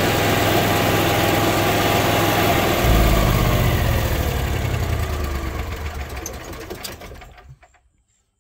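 Onan 5500 RV generator running steadily, now with its overfilled factory oil lowered to the proper level so it no longer sputters and dies. About three seconds in its sound changes and its pitch falls as it winds down, fading to silence near the end.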